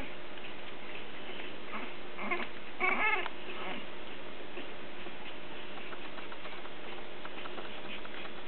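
Three-week-old English Bulldog puppies give a couple of short, high squeaky whimpers a little over two and three seconds in, the second one longer and wavering, over a steady background hiss.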